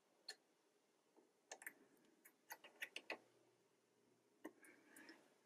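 Near silence broken by faint, scattered small clicks and ticks: fingers working the needle clamp and its screw on a Juki DX2000QVP sewing machine as a fresh needle is hand-tightened in place.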